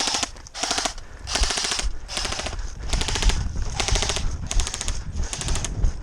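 Airsoft guns firing on full auto in short bursts, about one burst every half second to a second, each a rapid, even rattle of shots, as covering fire.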